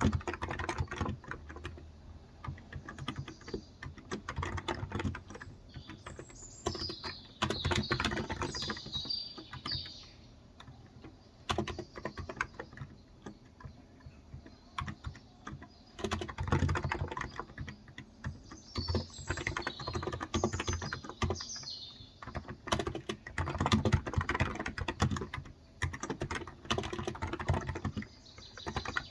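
Typing on a Cox Endeavor electro-capacitive (Topre-style) 35 g tenkeyless keyboard: bursts of rapid keystrokes with a lull of a few seconds before the middle. Birds chirp in the background in two spells, about a quarter of the way in and again past the middle.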